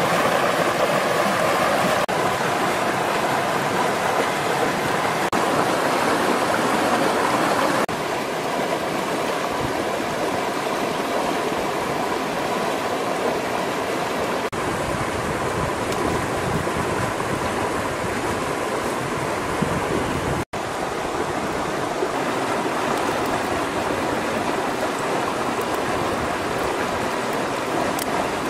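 Rocky creek running over stones: a steady rush of water. It is a little louder for the first several seconds and drops out for an instant about two-thirds of the way through.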